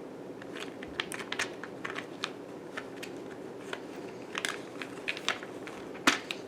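Small plastic tools and their plastic packaging being handled: a scatter of light clicks and crinkles. Near the end come two louder knocks, the tripod being bumped and a small pry bar falling.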